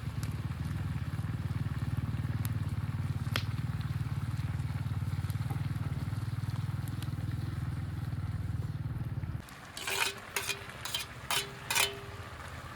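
A motor running with a steady low hum, which cuts off abruptly about nine seconds in. About five short, loud, sharp calls or cries follow in quick succession near the end.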